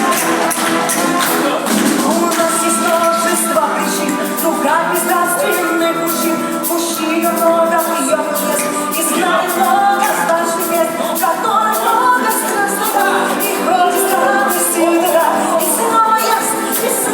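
Song with singing over a steady beat of quick, bright percussion strokes, thin in the bass.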